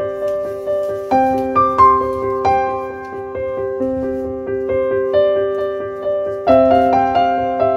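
Background piano music: a steady run of single notes over held lower notes.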